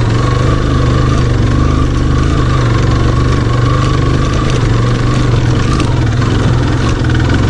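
Motorcycle engine running steadily at low revs as the bike rolls slowly over a rocky dirt track.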